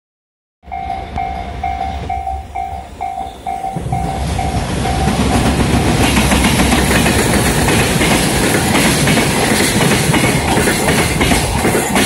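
Level-crossing warning bell ringing in quick repeated pulses, about twice a second. From about four seconds in, a JR Freight EF210 electric locomotive and its container wagons pass close by, and the train's rumble and wheel clatter build up and drown out the bell.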